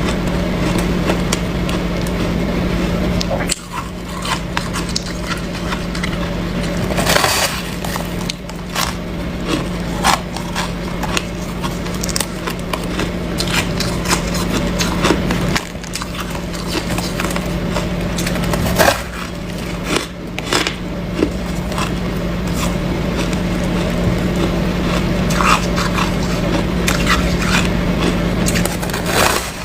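Close-up crunching and chewing of white snow ice: many small crackles and scrapes, with a few louder crunches scattered through, over a steady low hum.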